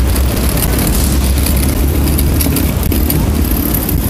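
Steady low rumble of wind buffeting the microphone, mixed with the hum of city traffic.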